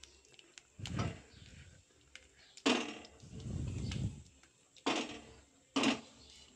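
A hot metal cooking pot of fish curry being handled in a cloth: several short knocks and scrapes, about four in all, with a longer low rumble around the middle.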